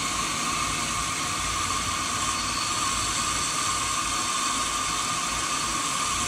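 Steady stream of flush water pouring from a radiator's lower outlet neck and splashing onto wet gravel while the radiator is flushed out with a garden hose.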